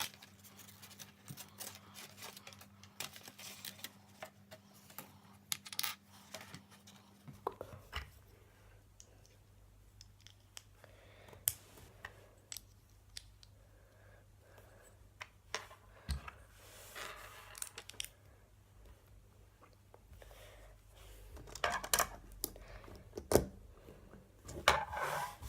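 Scattered small plastic clicks and rustling as Lego pieces are handled and snapped together.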